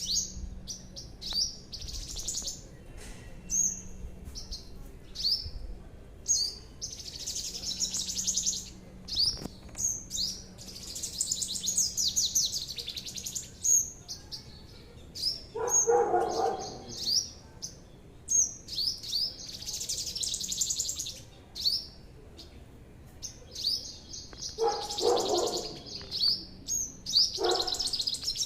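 A small songbird chirping and trilling, with quick high notes and rapid rattling trills repeated over and over. A few lower, harsher calls break in about halfway through and twice near the end.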